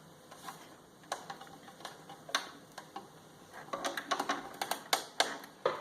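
Serger mechanism clicking and ticking as the handwheel is turned by hand to test the new threading, with scattered clicks at first and a denser run near the end.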